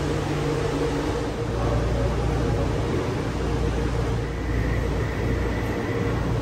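Steady hum and hiss inside a Taipei Metro Wenhu Line train car standing at a station with its doors open: ventilation and on-board equipment running. A faint, high, steady tone joins about two thirds of the way in.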